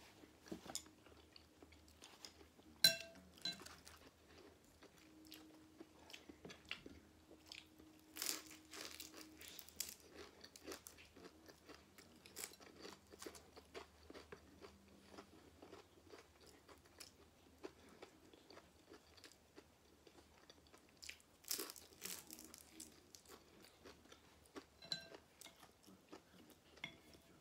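Chewing and crunching of fried egg rolls (lumpia), a string of small crackles with sharper crunches about three seconds in, around eight seconds and about twenty-one seconds in.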